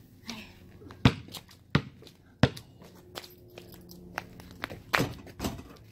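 A basketball bouncing: three sharp bounces about two-thirds of a second apart, then two more knocks close together near the end as the ball is shot and comes down.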